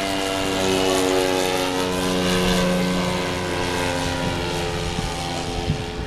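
Engine and propeller of a radio-controlled scale biplane in flight, a steady drone whose pitch slowly falls as it passes.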